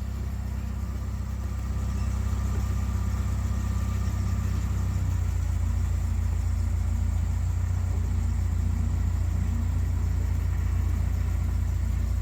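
Dresser bulldozer's diesel engine running steadily while grading, mostly a low sound that gets louder about two seconds in and then holds.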